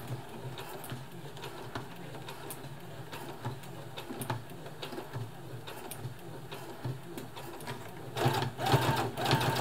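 Brother FS60X computerised sewing machine stitching slowly through a thick, many-layered denim jeans hem at its low speed setting. Its motor hums steadily while the needle punches through the layers, and it gets louder for the last second or so.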